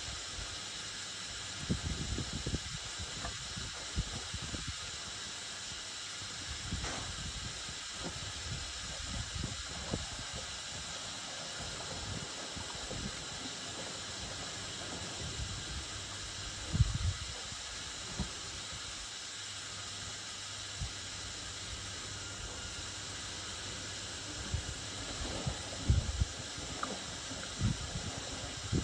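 Whirlpool FSCR 10425 washing machine mid-cycle: a steady hiss with a few soft low thumps, a handful of times.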